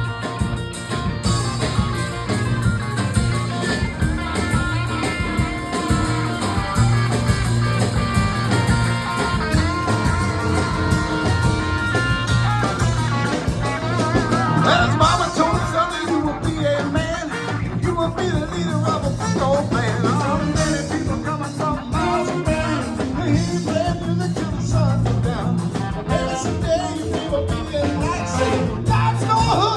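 Live swing band playing, with a steady bass line underneath and a singing voice coming in about halfway through.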